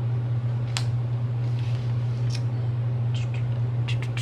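A steady low hum under a few sharp clicks and light taps from a pen and a sticker sheet being handled on a paper planner page. The clicks bunch together near the end.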